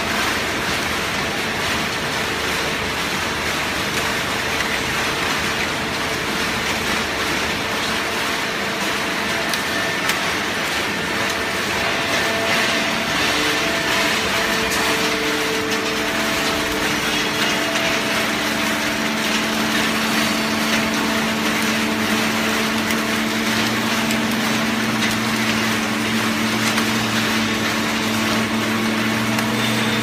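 Automatic horizontal hydraulic baler running: a steady, loud machine noise from its hydraulic power unit and press, with a low hum that grows stronger about halfway through.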